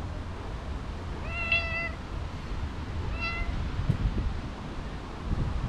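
A cat meowing twice: a longer, high meow about a second in, then a shorter one about three seconds in.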